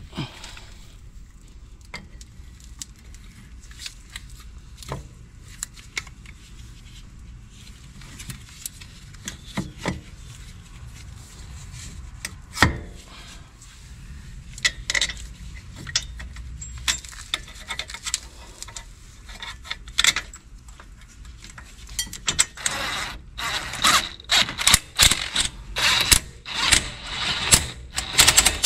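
Metal clinks and knocks as a brake caliper and its bolts are handled and fitted to the hub. Over the last several seconds these grow into a dense run of clicking and rattling as the caliper bolts are run in with a cordless tool.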